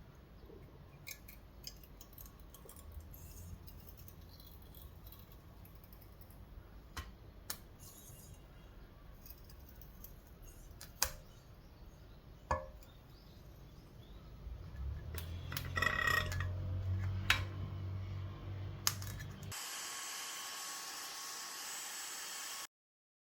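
Metal tools and parts clinking and knocking now and then during suspension work. A steady low hum joins in past the middle, and a steady hiss takes over near the end before the sound drops out.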